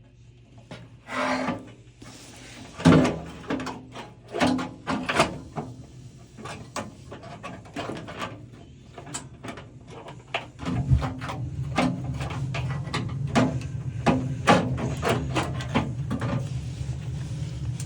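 Hand work on a gas water heater: a series of sharp clicks, knocks and rubbing from handling tools and metal parts. About eleven seconds in, a steady low rumble starts suddenly and keeps on under the knocks.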